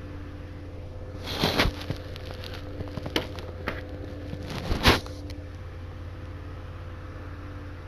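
Plastic DVD cases and packaging being handled: two short rustling, crackling bursts with a few sharp clicks between them, over a steady low hum.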